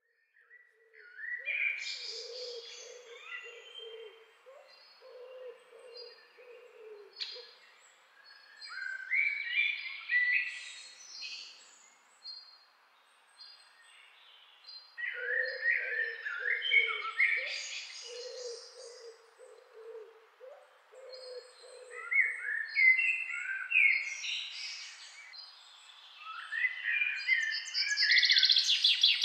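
Songbirds chirping and calling in overlapping bursts, with runs of low hooting coos between them.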